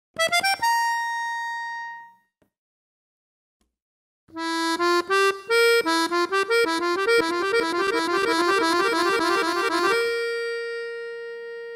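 Accordion music: a short rising flourish ending on a held note that fades, then after a pause a longer quick run of notes that ends on a long held note.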